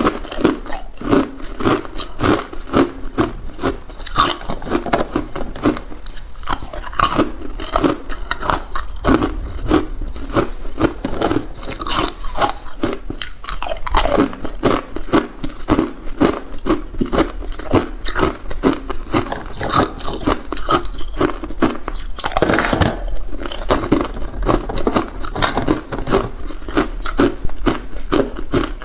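Hard clear ice cubes being bitten and chewed: a steady run of sharp crunches and cracks, about two or three loud ones a second.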